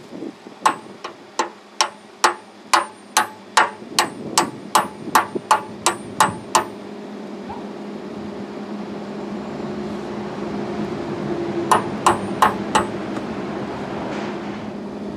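Hand hammer striking hardened steel spring bushings to drive them into a loader bucket's pin holes. A quick run of about fifteen ringing metal blows, two or three a second, goes on for the first six or seven seconds, and a shorter run of about five blows comes near twelve seconds. A steady low hum builds through the second half.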